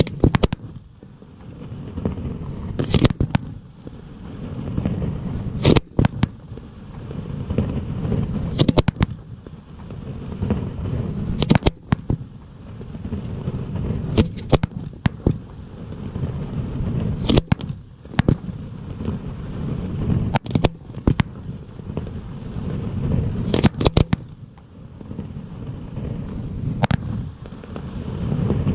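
Fireworks display: sharp bangs of bursting shells about every three seconds, each followed by a low rolling rumble.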